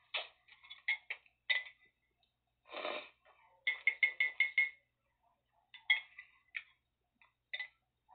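A metal spoon stirring in a ceramic mug, clinking against the side in irregular taps and one quick run of about six strikes, each with a short ringing tone. A softer, longer noise comes about three seconds in.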